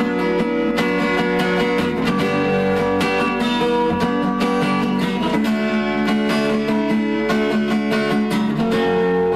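Acoustic guitar playing an instrumental break between verses of a song, strummed and plucked chords.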